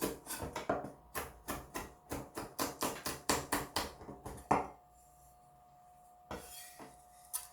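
Kitchen knife chopping rapidly on a cutting board, about four strokes a second, mincing a red chili pepper; the chopping stops after about four and a half seconds on a harder stroke. A short rustling noise and a click follow near the end.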